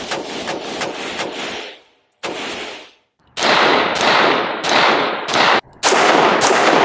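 AR-15 rifle fired rapidly in semi-automatic. First comes a quick string of lighter shots; after a short break come louder shots, about one and a half a second, each with a long fading tail.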